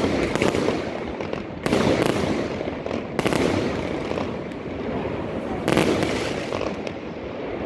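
Fireworks bursting overhead: four loud bangs at uneven intervals, each trailing off in a long, dense crackle and rumble that overlaps the next.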